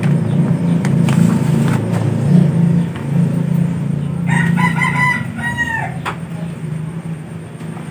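A rooster crows once about four seconds in, a call of under two seconds that drops in pitch at the end. Under it runs a steady low hum, with a few light clicks.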